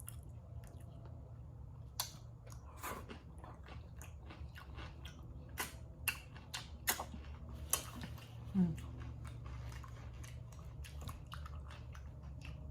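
Close-miked chewing of a sausage, rice and cucumber meal: wet mouth clicks and lip smacks scattered throughout, the loudest a little past the middle, over a steady low hum.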